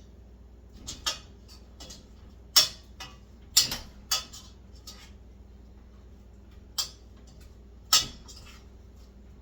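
Metal kitchen utensil clinking and knocking against cookware while the wings are handled: a handful of short, sharp clanks at irregular intervals.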